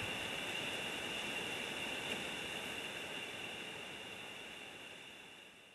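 Steady outdoor background hiss with a high, even band running through it, fading out near the end.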